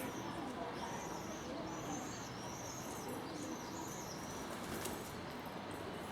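Small birds chirping, a run of short high calls repeating every half second or so, over a steady low background hum.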